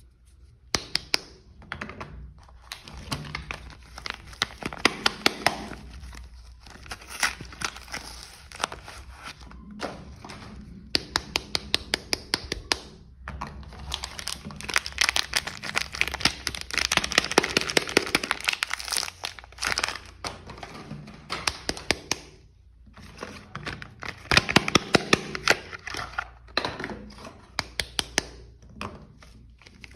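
Soap packaging being unwrapped by hand: wrappers crinkling and tearing with many sharp crackles and occasional thunks. It comes in bursts with short pauses.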